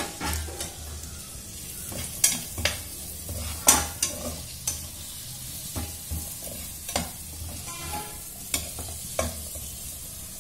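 A perforated metal spatula scraping and knocking against a metal pan as diced carrot, beans and capsicum are stir-fried in oil, about ten irregular strokes over a faint sizzle.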